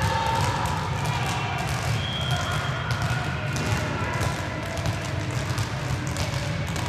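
Several handballs bouncing on a sports hall floor in a two-ball dribbling drill: a quick, irregular patter of bounces that echoes in the hall.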